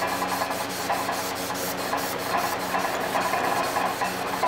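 Sandpaper on a sanding block rubbed by hand along a wet, hardened pattern-welded steel knife blade. It moves in quick, short back-and-forth strokes that make a steady scratchy scrubbing.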